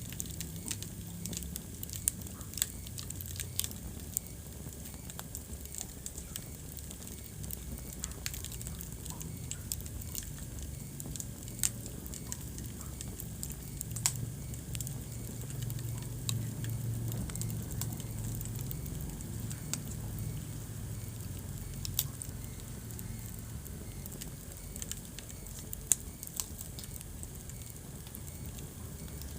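Wood fire burning in a fireplace: a steady low rumble of flames with scattered sharp crackles and pops from the burning logs, a few louder snaps among them.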